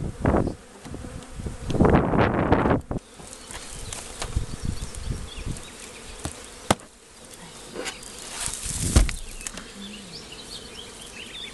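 Honeybees buzzing around an opened hive with a steady hum. Loud rustling comes in two bursts during the first three seconds, followed by a sharp knock and then a heavy thump as the wooden hive parts are handled.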